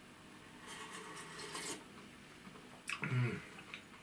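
A person slurping liquid from a china bowl, a noisy sip lasting about a second, followed near the end by a click and a short voiced sound.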